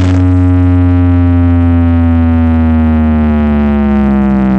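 Stacked sound-system speaker rig playing a loud, sustained low droning synth note whose pitch slowly falls, during a sound check that warms up the amplifiers.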